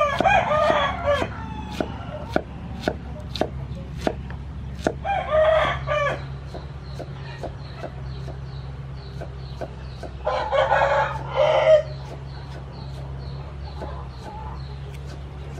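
A rooster crows three times: at the start, about five seconds in, and about ten seconds in. Under it, a cleaver chops pineapple on a wooden cutting board in steady sharp knocks, about two a second.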